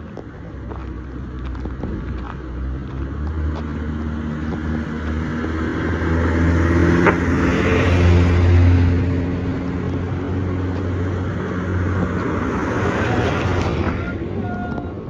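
A motor vehicle engine running close by, growing louder to a peak about halfway through and then easing off slightly.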